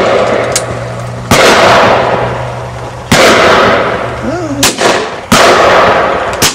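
Shotgun shots at flying game birds: three loud reports about a second and a half to two seconds apart, each trailing away over a second or so, with fainter, sharper cracks in between.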